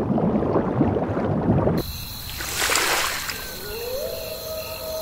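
Cartoon underwater sound effect: bubbling and gurgling water that cuts off suddenly about two seconds in. A whoosh follows, then a tone that slides up and holds steady.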